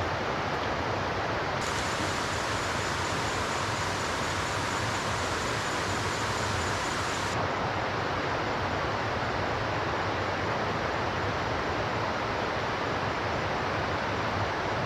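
Steady rushing of river water, an even hiss without breaks.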